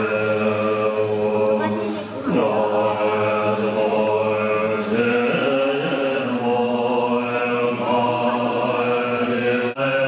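Tibetan Buddhist monks chanting prayers in unison, a steady low chant of many voices with long held notes and a short pause for breath about two seconds in.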